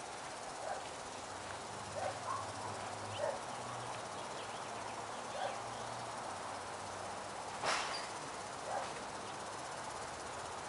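Quiet outdoor ambience: a steady hiss with a faint low hum for a few seconds, scattered faint short sounds, and one sharper click about eight seconds in.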